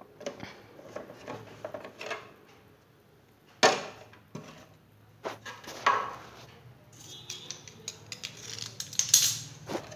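Plastic fridge shelf trays being handled, clattering and knocking irregularly. The sharpest knock comes about three and a half seconds in, and a denser stretch of rustling and clatter follows near the end.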